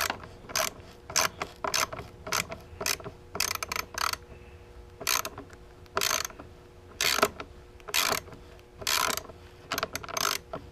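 Hand ratchet wrench clicking in short bursts, about one a second, as it is swung back and forth on a bolt.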